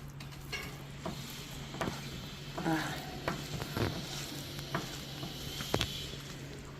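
Rice being mixed with mutton curry gravy on a plate: soft wet stirring and squishing with scattered light clicks.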